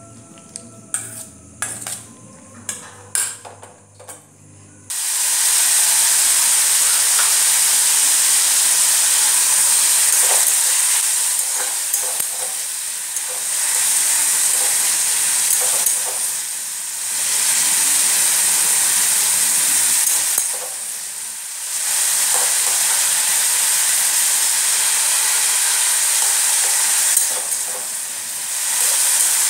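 Chopped vegetables (cauliflower, onion, carrot, capsicum) frying in an aluminium kadai while a metal spatula stirs them. The sizzle starts suddenly about five seconds in, runs loud and steady, and eases off briefly a few times. Before it there are only light taps and clicks.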